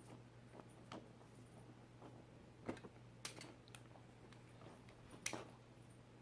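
Near silence with a few faint clicks and taps of small metal hose fittings being handled, over a low steady hum.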